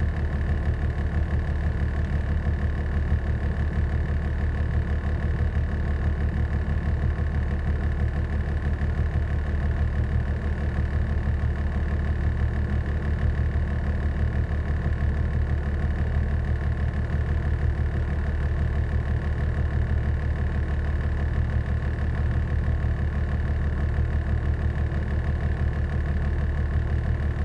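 A 1995 Cummins 12-valve 5.9 L inline-six turbodiesel running steadily, heard from inside the cab, with a deep even rumble and a thin, steady high whine over it.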